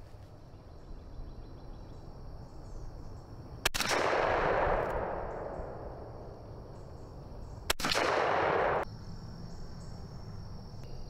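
Two shots from a Browning Maxus II 12-gauge semi-automatic shotgun firing 2¾-inch Winchester Super X #4 loads, about four seconds apart. Each is a sharp crack followed by about a second of loud echo.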